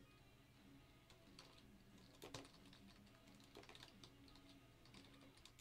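Faint computer keyboard typing: a few irregular keystrokes spread out over a quiet background.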